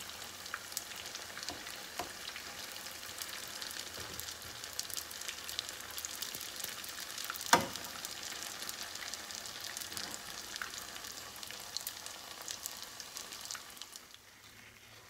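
Oil sizzling and crackling as egg-roll-wrapped shrimp tempura deep-fry in a pot, with metal tongs clicking against the rolls and pot as they are turned; one sharp clack about halfway through is the loudest sound. The sizzle fades near the end.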